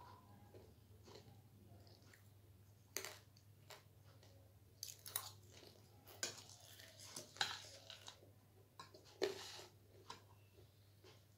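A person chewing crunchy homemade snack food (chatpate and pani puri), with irregular crisp crunches; the loudest bites come a little past the middle and again near the end.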